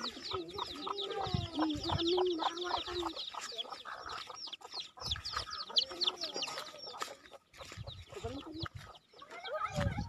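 Chickens clucking, with a dense run of quick, high, falling peeps that thins out about seven seconds in.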